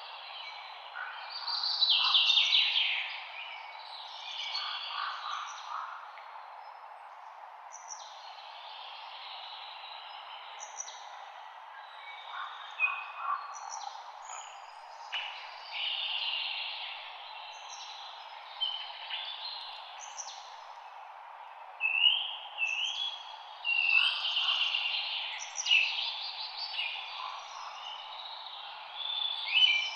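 Several songbirds singing over one another in short, quick phrases, some sliding up or down, every second or so, with louder bursts near the start and through the last third. Beneath them is a steady soft rustle of leaves in a light wind.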